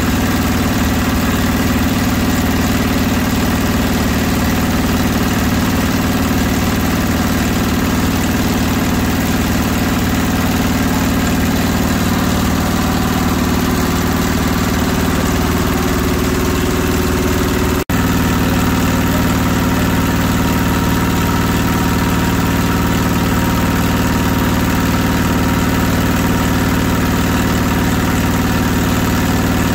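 Belt-driven electric meat grinder running steadily as meat is fed through it: a constant motor-and-belt drone with steady low tones. It breaks off for an instant about two-thirds of the way through.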